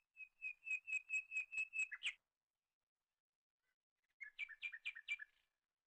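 A bird calling twice: first a run of about eight quick, evenly spaced high notes, about four a second, ending on a louder note near the 2-second mark; then, about two seconds later, a shorter run of five or six notes.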